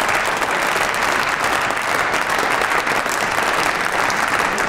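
Members of parliament applauding in a plenary chamber: many hands clapping in a dense, steady patter that starts abruptly and holds at an even level.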